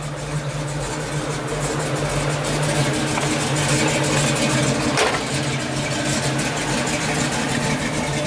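Fuel-injected 396 big-block V8 idling steadily, with one sharp click about five seconds in.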